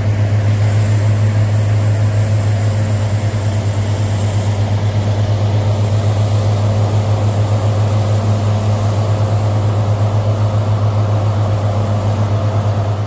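Heavy diesel engine of logging machinery running steadily at constant speed, a deep unbroken drone.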